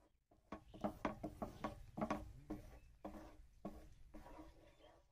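Wooden spatula stirring thick papaya halwa in a nonstick frying pan: faint, irregular soft knocks and scrapes against the pan.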